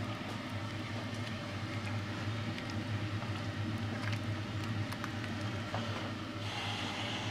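Wooden spoon stirring a pot of simmering lentil stew, with scattered light clicks against the pot, over a steady low hum; a short hiss comes in near the end.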